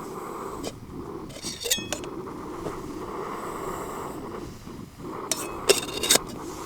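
A Primus camping stove burner running steadily, with metal clinks of a pot and utensils: a cluster about a second and a half in and louder clinks near the end.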